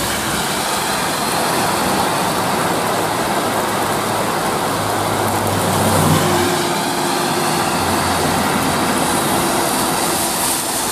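Heavy rain and tyres hissing on a wet road as cars pass. About halfway in, a low engine hum joins it as a Mercedes-Benz OC500RF coach approaches.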